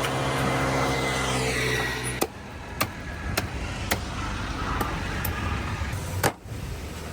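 A motor vehicle engine running with a steady hum that cuts off abruptly about two seconds in. After it comes quieter background noise with several sharp clicks, the loudest near the end.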